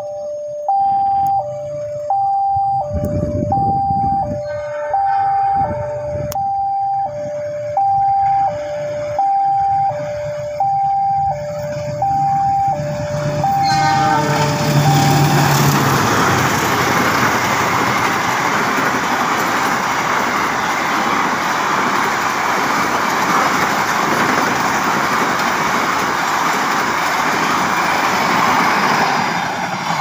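Automatic level-crossing warning alarm sounding a two-tone electronic signal, high and low alternating about every 0.7 s. About halfway through, a CC 206 diesel-electric locomotive and its passenger coaches pass over the crossing. Their steady rushing and rumbling of wheels on rails drowns out the alarm.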